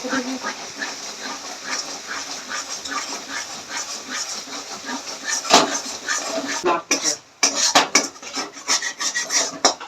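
Spatula stirring and scraping in a kadai of spice paste frying in oil. The dense crackle gives way to sharper, separate scrapes and clicks in the second half.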